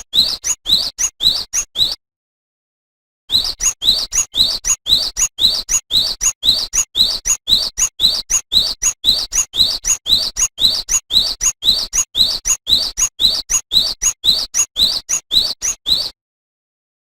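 Cinereous tit (gelatik batu) singing a fast, even run of short, high rising notes, repeated several times a second. The song breaks off about two seconds in, resumes about a second later, and stops again shortly before the end.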